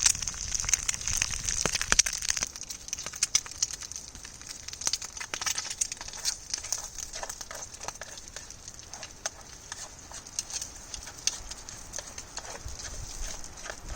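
Campfire crackling and popping irregularly, with bacon and egg sizzling in a pan over the fire; louder for the first couple of seconds, then softer.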